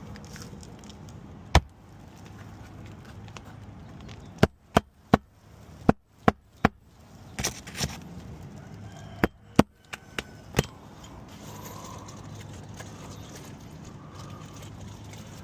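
Roofing hatchet driving nails by hand into asphalt 3-tab shingles. There is one sharp blow, then two quick runs of sharp strikes, about a dozen in all, over a steady low hum.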